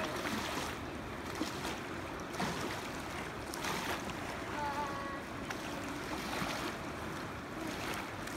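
Steady rush of a fast-flowing river, with small waves washing against a sandy shore.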